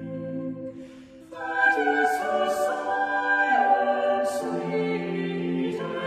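Background music: a choir singing slow, held chords, with a fuller, higher chord coming in about a second and a half in after a brief dip.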